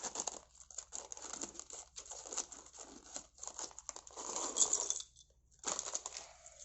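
Thin plastic bag of Lego bricks crinkling and tearing as it is opened, a dense run of short crackles with a brief pause about five seconds in.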